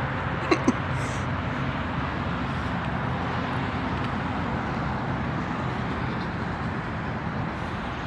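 Steady outdoor rushing noise, like traffic or wind, with two short clicks about half a second in.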